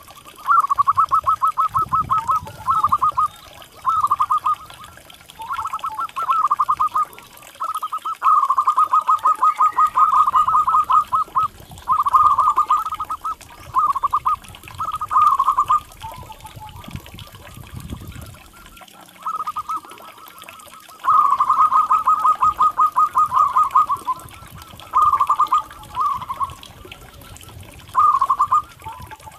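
Zebra dove (perkutut) calling: repeated bursts of rapid staccato notes, each burst lasting from under a second to about three seconds, with short pauses between.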